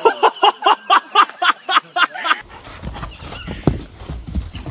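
A quick string of about a dozen short pitched cries, some five a second, stops sharply about two and a half seconds in. A horse then moves over dirt with dull hoof thuds under a low rumble.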